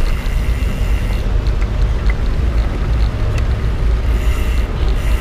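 A steady, loud low rumble with no voices over it.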